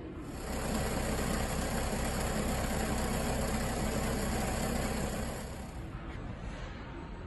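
Spiral auger screw conveyor running, its electric motor and turning auger making a steady mechanical noise that drops to a quieter hum about six seconds in.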